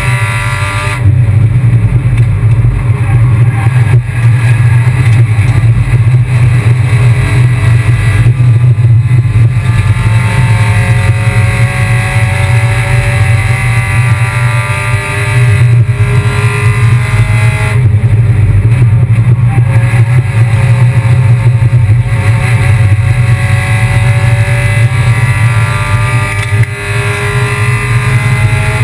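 Kia Picanto race car at full racing pace, its engine repeatedly climbing in pitch under acceleration and dropping back at gear changes and lifts, over a loud steady drone.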